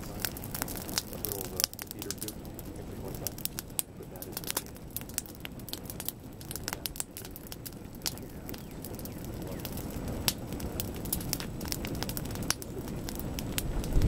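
Pahoehoe lava toes oozing onto an asphalt road that burns in front of them: irregular sharp crackling and snapping, many small pops a second.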